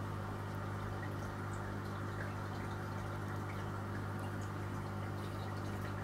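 Marine reef aquarium equipment running: a steady low electric hum from the circulation pumps, with water trickling and bubbling in the tank.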